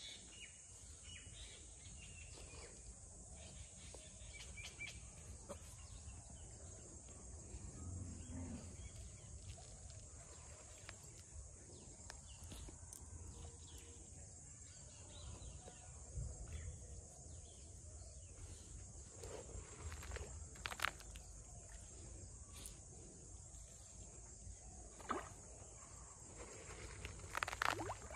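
Faint pond-side ambience with a steady high insect chorus, and a few short splashes in the second half as fish break the water's surface.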